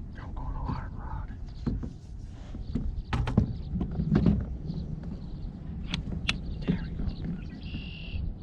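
Wind rumbling on the microphone, with scattered sharp knocks and clicks throughout and a brief high tone near the end.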